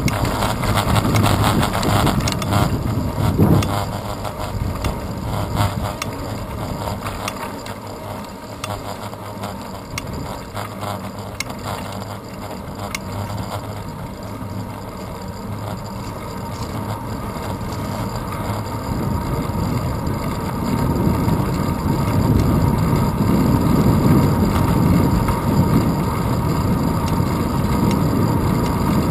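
Wind and road noise of a moving bicycle picked up by a handlebar-mounted camera: steady tyre rumble and rattle, with clicking in the first few seconds and the wind noise growing louder about two-thirds of the way through as the bike speeds up.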